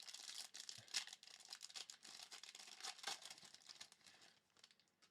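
Faint crinkling and tearing of a trading-card pack wrapper being handled and opened, with sharper crackles about a second in and again near three seconds, dying away near the end.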